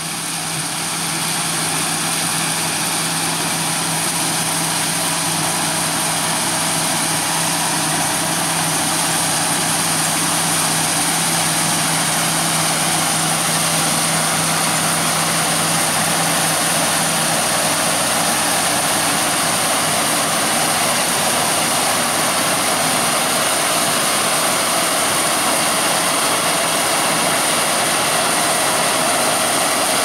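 John Deere W550 combine harvester running under load while combining barley: a steady, dense engine and machinery hum that grows louder over the first couple of seconds as the machine comes close. A steady low tone in the hum drops out about halfway through.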